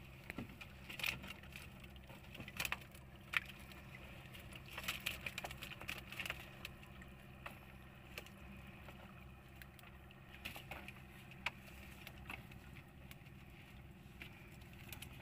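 Scattered clicks, knocks and small splashes from handling a wire-mesh fish trap (bobo) alongside an outrigger boat, over a steady low hum. The knocks come most thickly in the first half.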